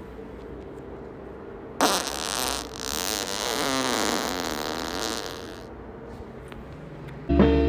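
A man's loud, drawn-out fart, starting suddenly nearly two seconds in and lasting about four seconds, its pitch wavering as it goes. Music starts near the end.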